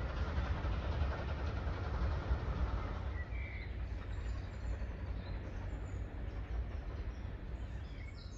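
Train running past: a low rumble that eases off about three seconds in, with birds chirping over it.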